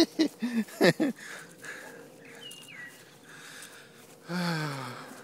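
A brief voice in the first second, then a single faint bird chirp falling in pitch about two and a half seconds in. Near the end comes a short vocal groan that slides downward, lasting under a second.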